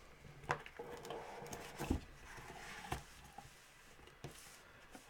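Trading cards and their wrapper handled on a table: a few soft taps and a light papery rustle.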